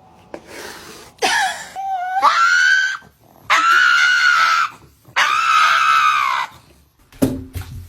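Three long, loud, high-pitched screams, each well over a second long with short gaps between them, followed by a brief shorter cry near the end.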